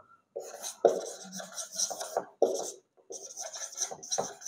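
Marker squeaking and scratching across a whiteboard as a word is written, in quick short strokes with a brief pause about three seconds in.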